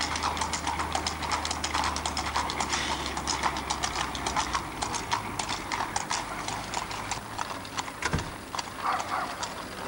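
Horses' hooves clip-clopping at a trot on an asphalt road, a quick, irregular patter of hoof strikes from more than one horse.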